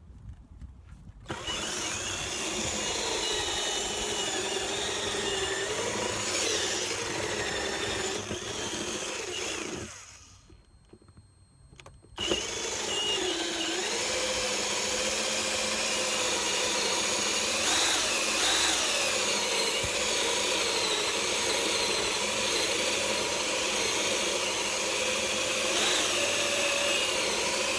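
Electric drill boring into the edge of a wooden door to cut the mortise for a sash lock. The motor's pitch wavers as the bit takes load. It stops for about two seconds near the middle, then starts again.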